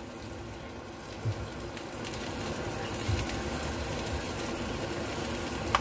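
Barbecue sauce squeezed from a plastic squeeze bottle over pork ribs in a metal oven tray: a few soft squelching thuds over a steady background hiss, with a sharp click near the end.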